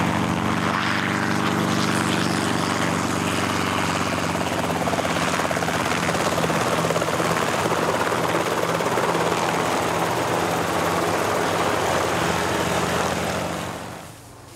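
Light helicopter hovering low and flying across, its rotor and engine running steadily. The sound drops away sharply near the end.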